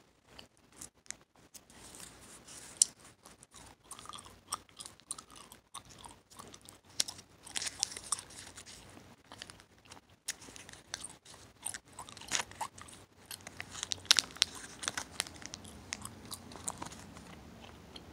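Hubba Bubba bubble gum being chewed close to the microphone, with smacking and many sharp cracking snaps, the loudest about three seconds in and about fourteen seconds in.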